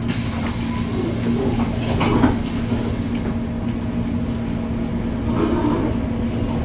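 Taiwan Railways Tze-Chiang push-pull train hauled by an E500 electric locomotive starting off from a standstill, heard from inside a passenger car. A steady low rumble carries a constant hum, with a couple of brief louder clunks and rattles.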